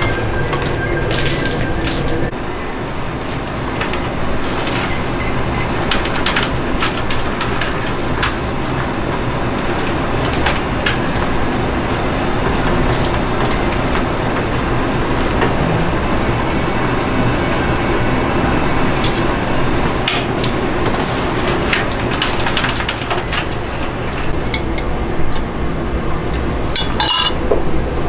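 Metal pans, ladles and noodle strainer baskets clinking and knocking now and then over a steady kitchen background of gas burners and a boiling noodle cooker.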